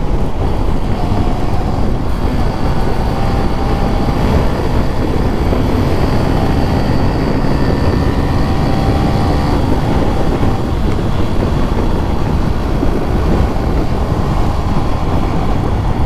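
Wind rushing over the microphone on a moving motorcycle, with a faint steady engine whine under it.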